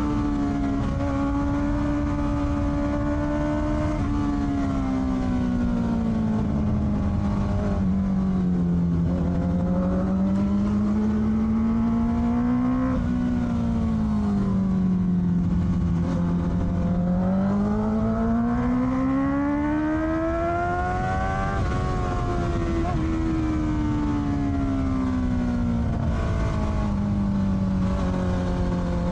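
Honda CBR650R's inline-four engine running through an Akrapovic exhaust under way. Its pitch falls and rises several times as the bike accelerates and eases off, with the longest climb about two-thirds of the way through.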